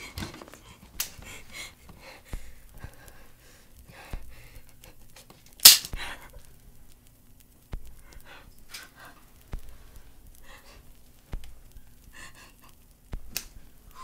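A woman panting and gasping in ragged, frightened breaths and sobs, with faint low thumps about every two seconds and one sudden loud sharp sound about halfway through.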